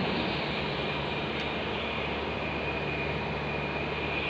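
Steady low mechanical hum and hiss of background machinery, even throughout, with no distinct tool clicks.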